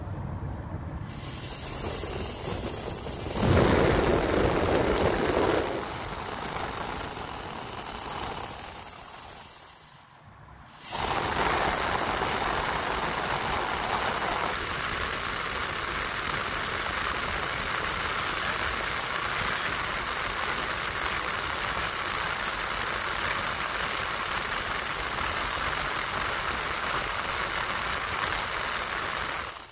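Freshly rebuilt Bosch blower motor and squirrel-cage fan of a 1981 VW Rabbit running in its housing: it comes on about a second in, swells, dies down near ten seconds, then comes back at about eleven seconds as a steady rush of air with a high whine and runs evenly until it cuts off near the end.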